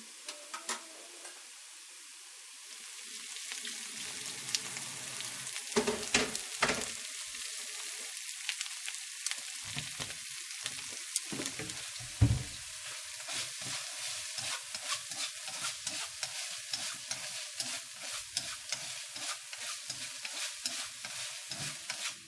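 Food sizzling and crackling in a hot pan while it is stirred, with a few utensil knocks against the pan. The sizzle swells a couple of seconds in and cuts off suddenly at the end.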